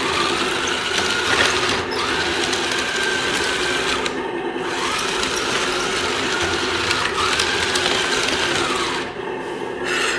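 Electric drive motors and gearboxes of a small 1/35 Q-version ZTZ-99A remote-control tank whirring as it drives and turns. The whine rises in pitch as the motors speed up and falls as they slow. It stops briefly about four seconds in and again near the end.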